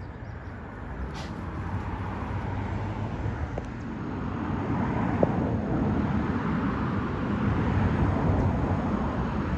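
Scooter riding along: a steady low rumble of motor and wheels that grows gradually louder.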